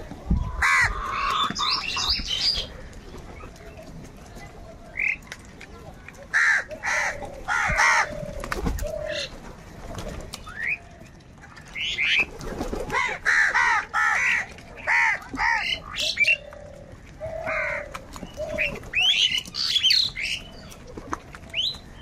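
A flock of house crows cawing: many short, harsh calls from several birds, coming in bunches with quieter gaps of a few seconds between them.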